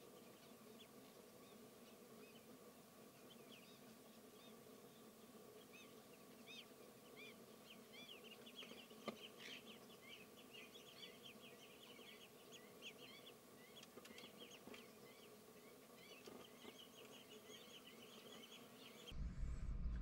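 Faint chorus of birds chirping: many quick, rising-and-falling calls that grow busier a few seconds in, over a faint steady hum. One small click partway through.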